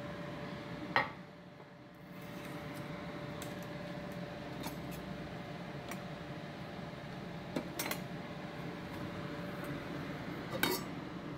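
A few sharp clinks of utensils and dishes against a stainless-steel pot and a plate as food is served: one about a second in, two close together past the middle, and one near the end. A steady hum runs underneath.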